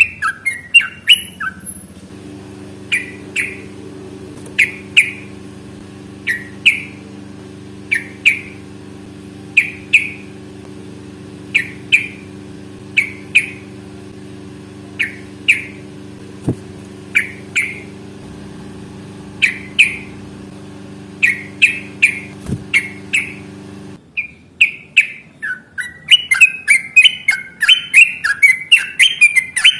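Yellow-vented bulbul (trucukan) singing: short, sharp chirped notes about once a second over a steady low hum, breaking into a fast, continuous run of notes (the long 'ropel' song) near the end.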